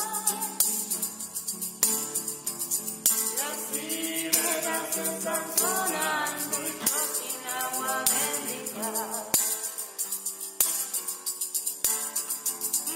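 Song with acoustic guitar and a singing voice, with a tambourine struck on a steady beat about every second and a quarter and its jingles shimmering in between.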